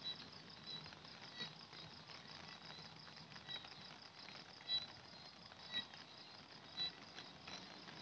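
Faint chorus of insects chirping with a fast, even pulse, over a soft hiss. Several soft taps stand out at times, the loudest nearly five seconds in.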